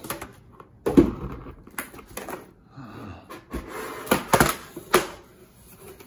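Coffee maker packaging being handled during unboxing: a string of sharp knocks and taps with scraping and rustling between them, the loudest knock about a second in.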